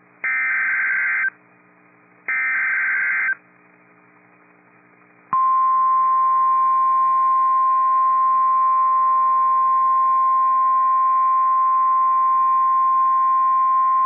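NOAA Weather Radio SAME alert header: three one-second bursts of warbling digital data tones, a second apart. About five seconds in, the steady high-pitched warning alarm tone starts and holds for about nine seconds, signalling that a new tornado warning follows.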